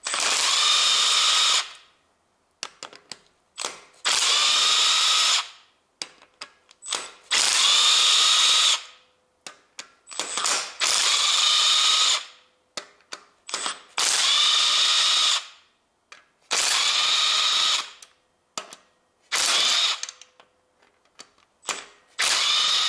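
Cordless power driver with a 10 mm socket spinning out the long camshaft-holder bolts of a Honda R18A 1.8 four-cylinder engine, one bolt after another. About eight runs of a second and a half each, every one starting with a rising whir as the motor spins up, with small clicks in the gaps between.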